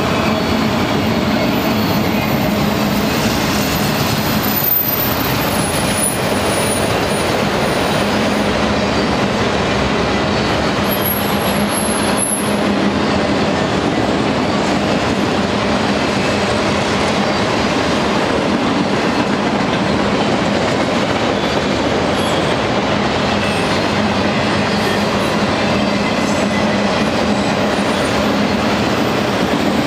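Freight train's autorack cars rolling past on steel rails: a steady, loud rumble and clatter of wheels, with thin high-pitched wheel squeals about five to eight seconds in and again around eleven to twelve seconds in.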